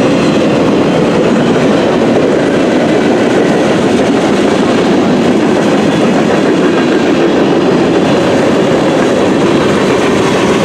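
CN freight train's cars rolling past at close range: a loud, steady rumble and rattle of wheels on the rails.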